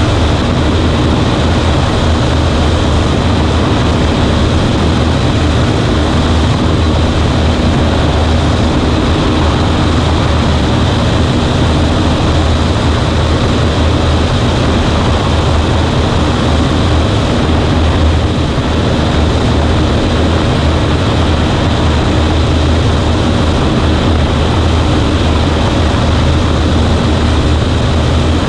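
Cessna 140A's four-cylinder piston engine and propeller running steadily in cruise, heard as a loud, unchanging drone inside the cabin.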